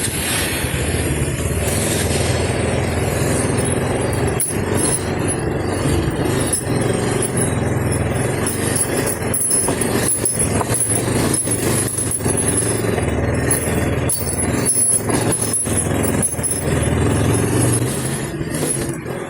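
A vehicle driving on a rough road: a steady engine and road rumble, broken by frequent short knocks and jolts.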